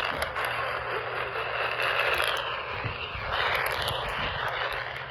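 Radio receiver static: a steady hiss with scattered crackles, swelling briefly a little after three seconds in, as a weak or unmodulated weather-radio signal is received between alerts.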